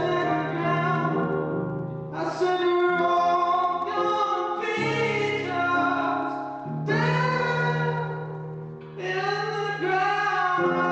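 Live singing in long, held notes without clear words, in phrases about two seconds long, with accompaniment underneath.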